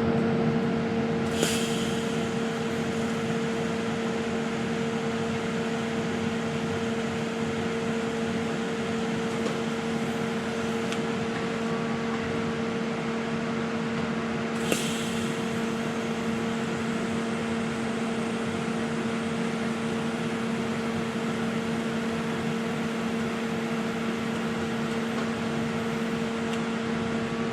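TIG welding set humming steadily, with two short, sharp crackles, one about a second and a half in and one about fifteen seconds in.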